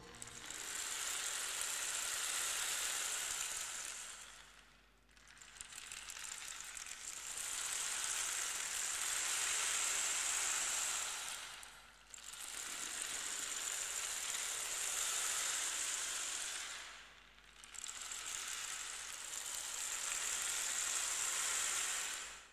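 Sea waves washing on a shore: a hissing rush that swells and falls away four times, each surge about five seconds long.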